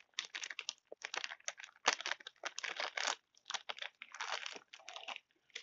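Clear plastic zip-top bag crinkling as it is handled, a string of short irregular crackles.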